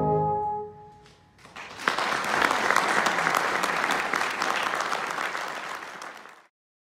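Tenor horn and brass band hold a final chord that dies away, then an audience applauds for about five seconds before the sound cuts off suddenly.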